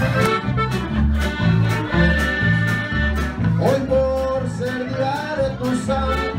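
Live norteño band music: accordion and guitar over a steady bass beat about twice a second, with a voice singing.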